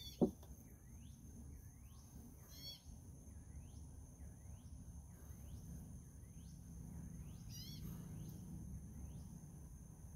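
A bird repeats a down-slurred whistled note about every two-thirds of a second, over a steady high insect buzz, with two short trills from another bird. A single sharp knock sounds just after the start.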